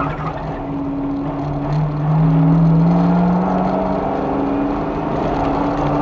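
Car engine, heard from inside the cabin, running hard on a race track: its pitch climbs steadily for about two seconds, then drops back and holds.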